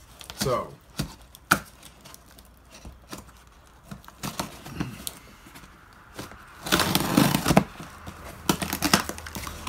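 Packing tape being picked at with fingernails and peeled off a cardboard shipping box: scattered scratches and taps, a longer rip of tape about seven seconds in, then a few short rips near the end.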